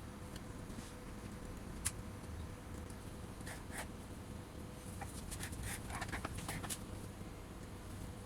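Scattered light clicks and taps: a single one about two seconds in, a few a little later, and a quick run of them past the middle. Under them runs a steady low hum.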